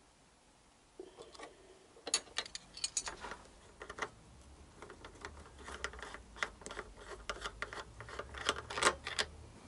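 Irregular small metallic clicks and clinks of a spanner and metal motorcycle fittings being handled, starting about a second in.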